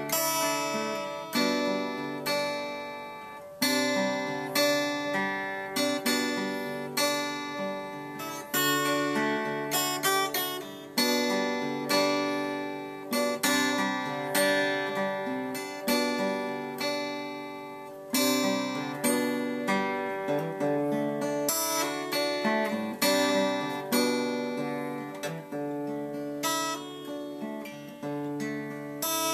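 Acoustic guitar being fingerpicked: arpeggiated chords with a fresh pluck about every second, the notes ringing and fading between attacks. It is heard through a pocket camcorder's built-in microphone.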